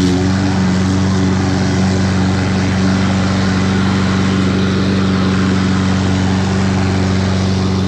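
Toro 21-inch walk-behind lawn mower running steadily at full mowing speed, its engine and freshly fitted blade loud enough to drown out a voice.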